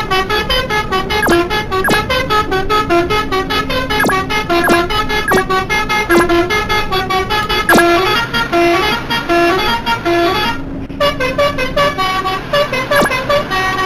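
Multi-tone 'telolet' bus horn playing a tune of short stepped notes, with sharp knocks sounding in between.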